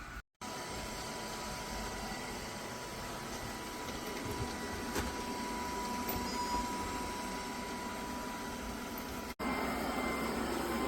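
Robot vacuum cleaner running: a steady whir with a thin, even whine over it. It drops out for a moment just after the start, and about nine seconds in the sound shifts abruptly to a slightly louder steady whir.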